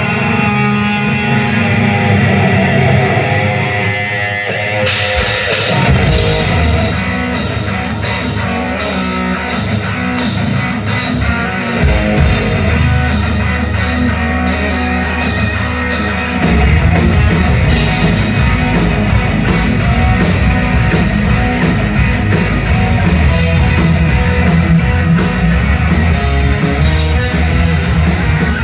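Live melodic rock band playing electric guitars, bass guitar and drum kit. The opening is guitar-led, the full drum kit with steady cymbal beats comes in about five seconds in, and the band gets louder again a little past halfway.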